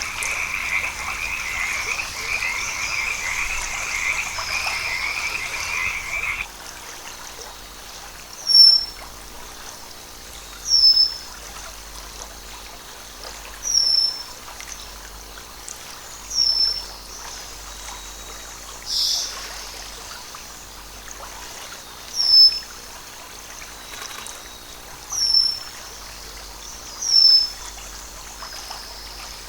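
A dense, trilling frog chorus that cuts off abruptly about six seconds in. After that, a short high chirp repeats about every two and a half seconds over a faint steady background.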